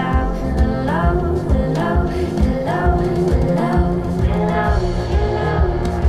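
Monitor Audio Platinum 200 G3 floorstanding loudspeakers playing a song in a listening room, recorded through room microphones: a woman's singing voice gliding between notes over sustained instrumental accompaniment with a steady low pulse.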